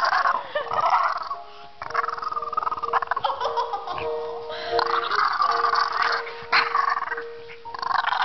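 French bulldog making gurgling, grumbling 'talking' vocalizations in long bursts with short pauses, over a steady high hum.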